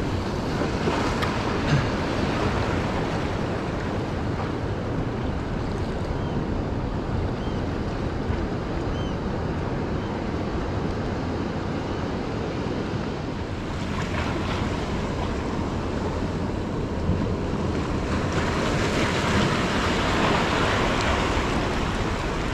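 Surf: waves breaking and washing over the rocks of a jetty in a heavy swell, swelling louder about two-thirds of the way in and again near the end, with wind on the microphone.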